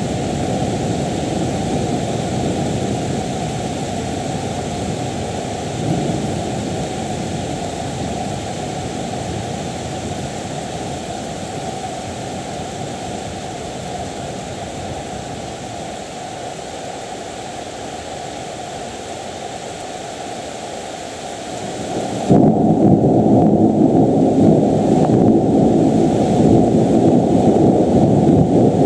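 Thunder: a deep rolling rumble that slowly dies away, then a new peal breaks in suddenly about 22 seconds in and rumbles on loudly.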